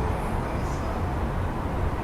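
Steady rumble of city street traffic heard through an open window, with no single vehicle standing out.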